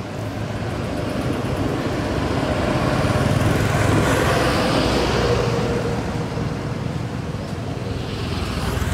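A motor vehicle passing by on a nearby road: its engine and tyre noise swell up, are loudest about four seconds in, then fade away.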